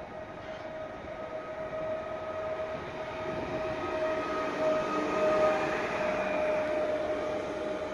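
Pesa Elf EN76 electric multiple unit rolling slowly past along the platform, a steady whine over its running noise, growing louder as the train comes close.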